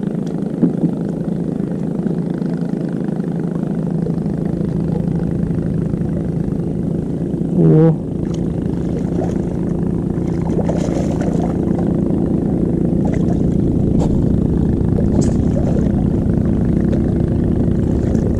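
A small engine running steadily with a low, even hum. About eight seconds in there is a short wavering sound, and a few sharp ticks come in the second half.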